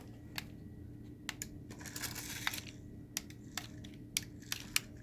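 Irregular small plastic clicks and ticks from a 1:64-scale mini RC dump truck and its remote being handled in sand, with a brief gritty hiss about two seconds in.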